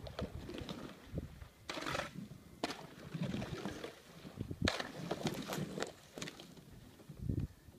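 Thin new lake ice cracking and crunching as a canoe is paddled through it, with several irregular sharp cracks and a burst of crunching about five seconds in.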